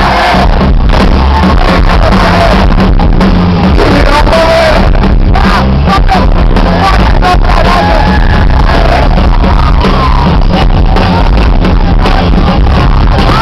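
Loud live rock band playing, with drums, bass and guitars and a singer's voice over them.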